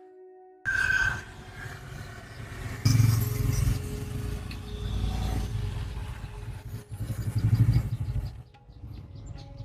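A vehicle engine running with a low rumble and some clatter, swelling in loudness about three seconds in and again later on. A brief stretch of music ends within the first second.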